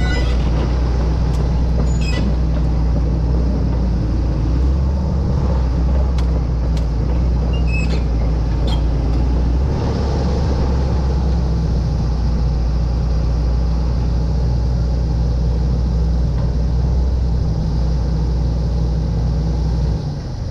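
Diesel engine of a John Deere 330C LC excavator running steadily, with its pitch and load shifting a few times, and a few sharp clinks or squeaks over it in the first half. It falls off just before the end.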